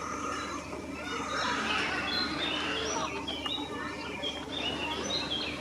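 Birds chirping in many short, high notes, thickest in the second half.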